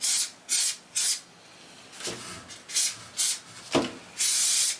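Mould-release spray hissing in a string of short bursts, with one longer burst near the end. It is coating the mould so the cast polyurethane comes out once it hardens.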